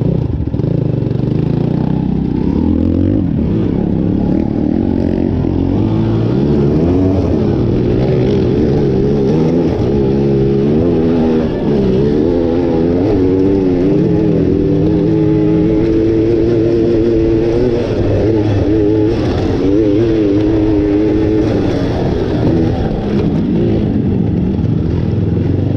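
Motorcycle engine under way, its pitch climbing and dropping several times as it accelerates and eases off, with a steadier stretch at speed in the middle.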